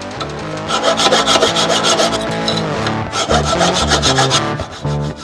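Hand file rasping on the spring-steel blade of a dagger, in repeated strokes, cleaning up the shoulders where the blade meets the tang. Music plays underneath.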